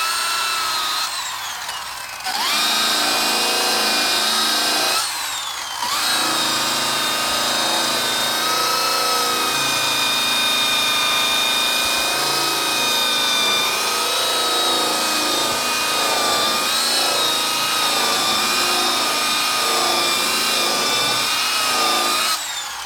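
Power tool spinning a cloth buffing wheel loaded with brown cutting compound against an oxidized plastic headlight lens, a steady motor whine. It is let off and spun back up twice in the first few seconds, and winds down near the end.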